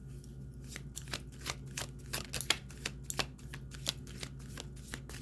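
A deck of tarot cards being shuffled by hand: a quick, irregular run of card flicks and snaps.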